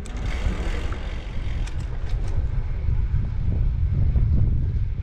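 Wind buffeting the microphone on a moving bicycle, with a few sharp clicks coming from the bike, mostly between about one and a half and two and a half seconds in. The clicking is an unwanted noise from the bike.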